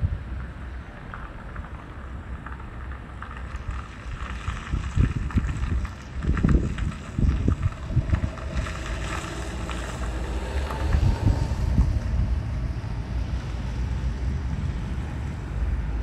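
Wind buffeting the microphone in uneven gusts. From about halfway, the hiss and rumble of an approaching train grow underneath.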